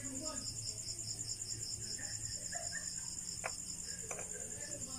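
Crickets chirping in a high, steady, evenly pulsing trill. Two light clicks sound about three and a half and four seconds in, as the transmission's gear parts are handled.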